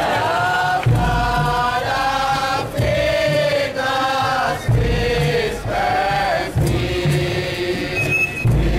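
Bobo Shanti Rastafari marchers chanting together in sung, drawn-out notes over a steady low beat.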